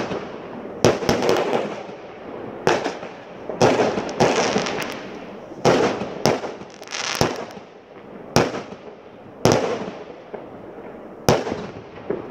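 Fireworks going off shot after shot, a sharp bang about every second, each with a short hissing tail. The shots thin out toward the end.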